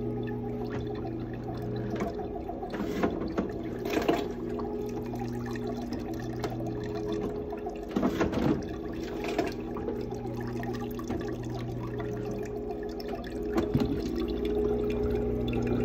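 Zummo Z06N automatic citrus juicer running on lemons: a steady motor hum, broken by a handful of short clunks as fruit drops in and is squeezed, with juice trickling from the spout into a glass jug.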